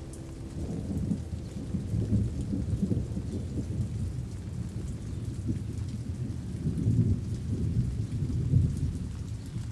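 Rain falling steadily with low rolling thunder. The rumble comes in about a second in and swells twice, early on and again near the end.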